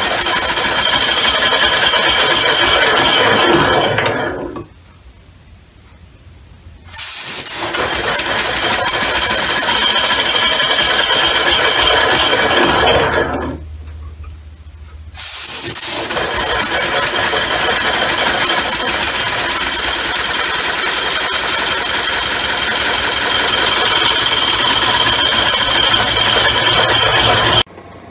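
Home-built compressed-air oval engine running on a workbench, a loud rush of air with fast clattering from the rotating arm. It stops about four and a half seconds in, starts again about two seconds later, slows and dies away around thirteen seconds, then starts once more and runs until it cuts off just before the end.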